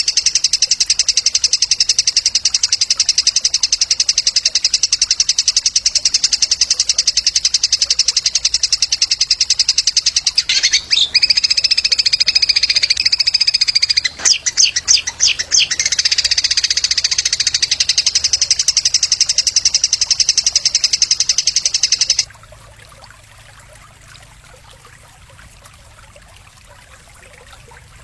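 A small songbird singing a fast, continuous rattling trill. Midway it turns to clearer whistled notes and a quick run of sharp chips. The song cuts off abruptly about three-quarters of the way through, leaving a faint hiss.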